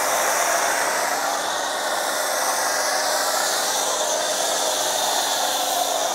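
A pressure washer drives a PF22.2 foam cannon, spraying a thick jet of snow foam onto car paint with a steady hiss.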